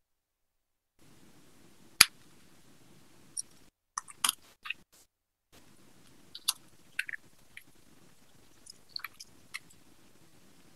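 Faint hiss broken by brief dropouts to dead silence, with scattered clicks and one sharp pop about two seconds in: a live audio feed with a sound fault, the presenter's microphone not coming through.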